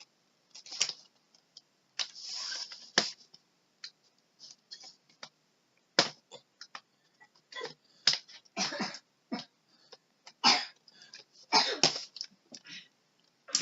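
A cardboard toy box and its packaging being handled and pulled at: irregular scrapes, rustles and sharp clicks, some lasting under a second.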